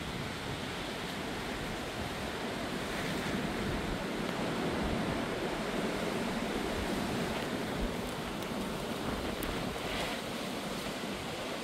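Gusty wind rushing and buffeting the microphone, building into a stronger gust a few seconds in and easing off again.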